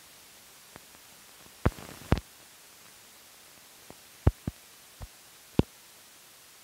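Surface hiss of an old film print's optical soundtrack running out at the end of the reel, broken by a scattering of sharp pops and clicks. Two of the pops come close together about two seconds in, and more follow in the second half.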